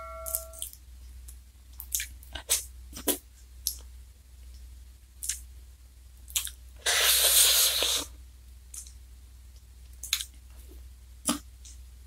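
Close-up eating sounds of an ice cream cone: scattered crisp crunches and clicks of a black wafer cone being bitten, with soft wet chewing between them. A louder noisy stretch lasts about a second, about seven seconds in.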